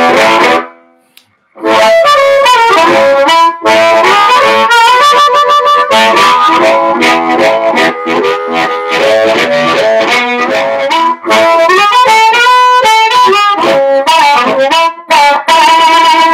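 Amplified harmonica: a Turbo Harp in A played into an Astatic JT-40 bullet microphone with a 1950 Shure controlled-reluctance element, through a Masco MA-17N tube PA amp on its low-output phono input and a Hammond organ 10-inch alnico speaker, with a pretty crunchy tone. A held chord breaks off about a second in, then riffs of chords and single notes run on.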